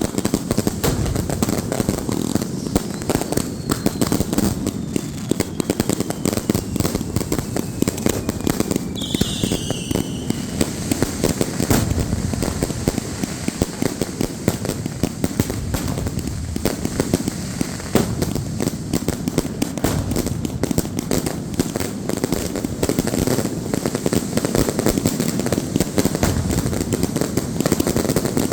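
Firecrackers going off in a dense, continuous run of rapid pops and crackles. A thin falling whistle sounds a few seconds in, and a short shrill whistle about a third of the way through.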